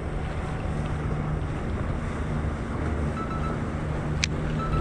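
Small outboard-powered motorboats running past at speed, a steady low engine drone, with wind buffeting the microphone and water washing against the jetty rocks. A single sharp click about four seconds in.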